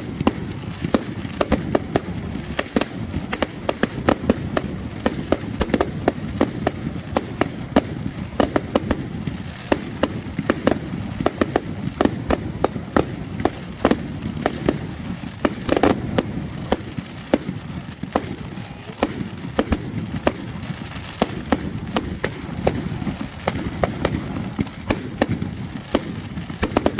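Fireworks bursting overhead in a rapid, continuous barrage: sharp bangs and crackles several times a second, with no let-up.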